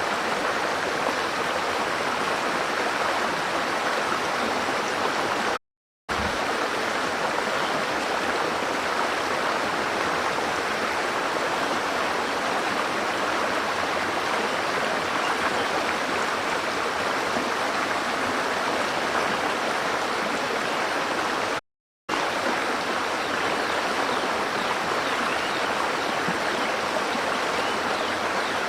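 Steady rushing of flowing water, a stream or small cascade, even and unbroken except for two brief total dropouts, about six seconds in and again near twenty-two seconds.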